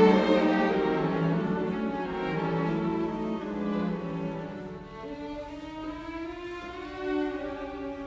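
Background music of bowed strings, violin and cello playing slow held notes, fading somewhat toward the middle.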